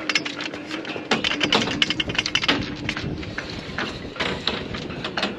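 A rapid, irregular clatter of clicks and light knocks, densest in the first three seconds and thinning out after, over a faint steady hum.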